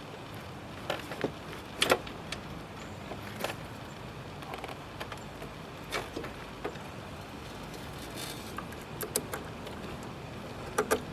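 Scattered metallic clicks and clinks of small bike parts and hand tools being handled during work on an e-bike's rear hub, the loudest about two seconds in and a quick pair near the end, over a steady hiss.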